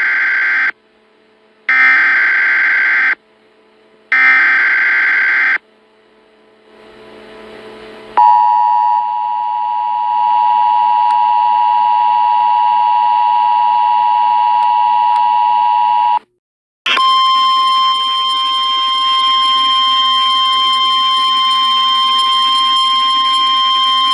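Emergency Alert System tornado warning over FM radio. Three short bursts of buzzing SAME data header, about a second each, come first. About two seconds after the last one, the two-note EAS attention signal holds steady for about eight seconds. After a brief break comes a single steady, somewhat distorted tone, the NOAA Weather Radio 1050 Hz warning alarm.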